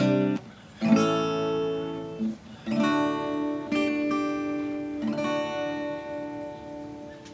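Acoustic guitar music: strummed chords, the last one left ringing and fading away.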